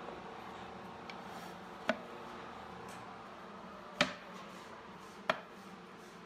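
A dry-fitted, unglued solid cherry bookcase carcass being handled: four short, sharp wooden knocks, the loudest about four seconds in, over a faint steady hum.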